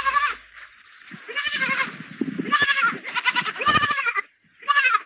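Young lamb bleating, about five short wavering bleats in a row.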